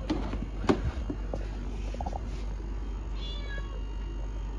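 A cat in a plastic pet carrier meows once, a short falling call about three seconds in. Before it come two sharp clicks as the carrier is handled, the second the loudest sound here.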